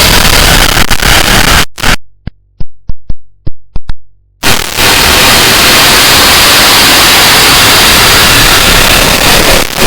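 Harsh noise music: a dense wall of distorted static at full volume. It cuts out about two seconds in for a couple of seconds of near silence broken by about seven sharp clicks, then the wall of static slams back in.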